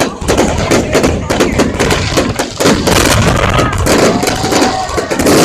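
Fireworks going off in rapid succession, a dense run of sharp bangs several times a second, with a crowd's voices beneath.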